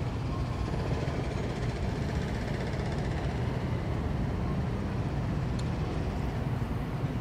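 Steady low rumble of distant city traffic heard from high on a rooftop, with no single vehicle standing out.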